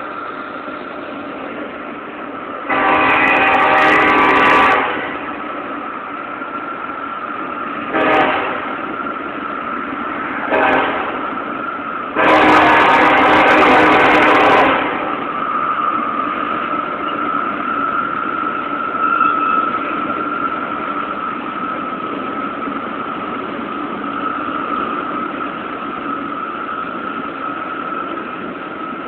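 Freight locomotive air horn sounding a crossing signal: a long blast, two short ones, then a long one, over the steady rumble and clatter of a freight train rolling past. A steady high-pitched tone continues under the train noise after the last blast.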